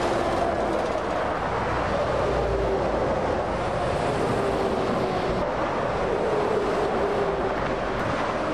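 Articulated lorries, a DAF XG tractor unit among them, passing close at motorway speed: a steady roar of tyres and engines, with a whine that slowly drops in pitch as each one goes by.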